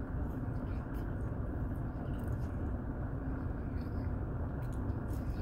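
Steady low rumble inside a car, with a few faint crunches of someone chewing a crispy French fry.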